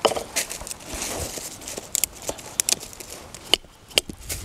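Wooden baton striking the spine of a Condor Kephart knife, driving the blade down through a stick to split it: a string of sharp knocks at irregular intervals, with wood cracking apart in the first second or so.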